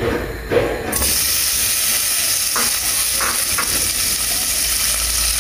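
Diced bacon frying in hot oil in a pot, the sizzle starting suddenly about a second in as it hits the oil and then holding steady. A few light knocks sound briefly in the middle.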